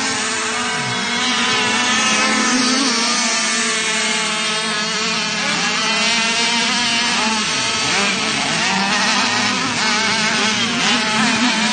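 Several radio-controlled racing boats running at high speed, their motors screaming with several pitches wavering up and down as the boats turn and pass one another.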